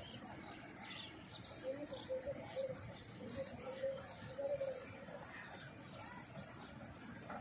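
Insects stridulating: a continuous high-pitched, finely pulsing trill that breaks off briefly about half a second in.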